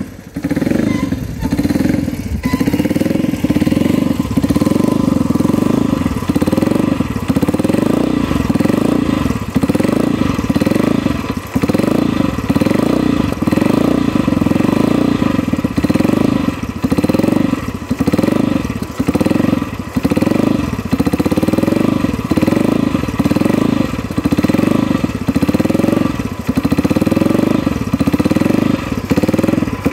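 Motobi 125 Imperiale Turismo's horizontal single-cylinder four-stroke engine running at a standstill on a 3D-printed PP20 carburetor. It runs steadily with a regular pulse about once a second.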